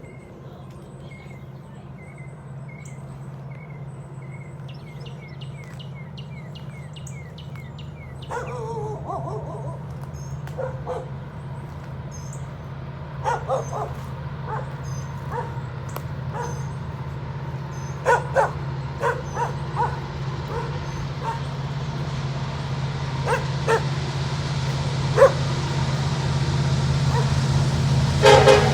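Diesel locomotives of a coal train approaching, a steady low engine rumble growing louder. A dog barks repeatedly over it in the second half, and birds chirp at the start.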